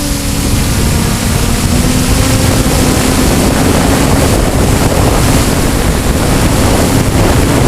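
Strong wind rushing over the microphone, loud and noisy, swelling about half a second in, with a steady motor hum just audible beneath it.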